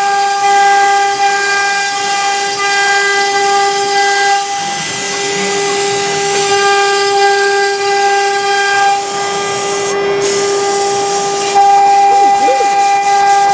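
3 kW water-cooled CNC router spindle running steadily as it engraves MDF: a steady high-pitched whine over a hiss. The whine dips briefly about four and a half seconds in and again around nine to ten seconds.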